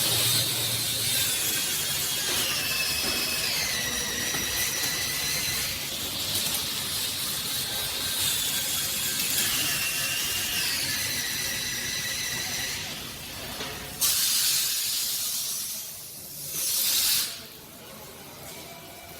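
Automated door-frame welding cell running: a steady hiss with a motor whine that steps down in pitch twice, then two short, sudden bursts of hiss near the end.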